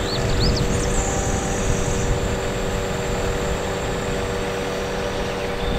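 Engine of a truck-mounted aerial work platform running steadily at idle, with a steady hum from the hydraulics as the boom is slowly lowered.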